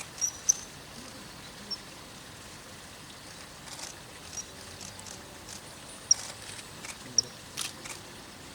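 Common kingfisher giving several short, high, thin calls, spaced irregularly, over a faint steady outdoor hiss.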